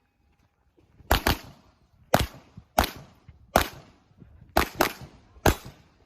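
Handgun shots fired in an IPSC stage: eight sharp cracks at an uneven pace, two quick pairs among single shots spaced under a second apart, as the shooter moves between targets.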